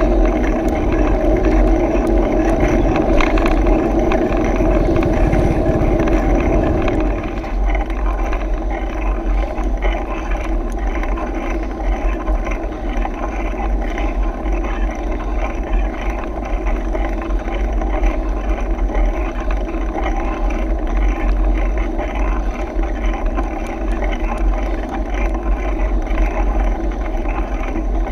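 Wind rumbling over an action camera's microphone on a moving mountain bike, with the hum of the bike's tyres rolling on the road. The sound changes about seven seconds in, where the higher part of the hum drops away.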